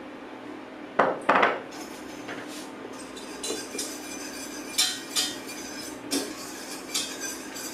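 Wire whisk clinking and scraping against the inside of a stainless-steel saucepan, stirring sugar into warming lemon juice: two sharp knocks about a second in, then scattered clinks every second or so.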